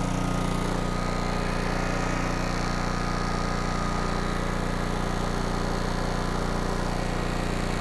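Kohler Command air-cooled engine running steadily at a constant speed.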